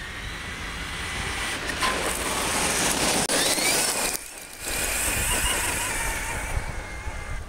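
Team Associated Rival RC monster truck driving flat out on gravel: the high whine of its brushless electric motor over the hiss and crunch of gravel spraying from its tyres. The whine rises sharply as the truck closes in, cuts out for a moment, then holds and slowly drops in pitch as it pulls away.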